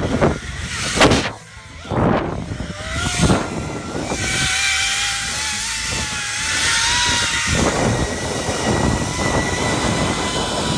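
Zip-line trolley pulleys rolling along the steel cable at speed: a steady mechanical whine that slowly rises in pitch, over wind rushing across the microphone. In the first few seconds, before the whine sets in, there are several short rushes of wind.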